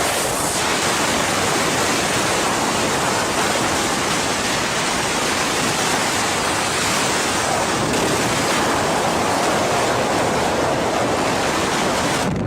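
Steady, loud rush of water, an even noise without a break.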